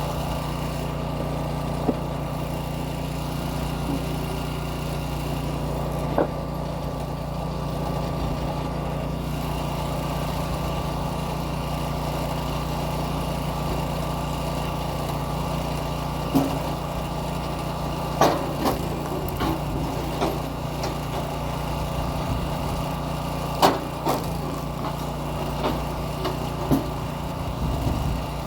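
Small gasoline engine of a kinetic-energy log splitter running steadily, with sharp knocks and cracks now and then, more often in the second half, as logs are split.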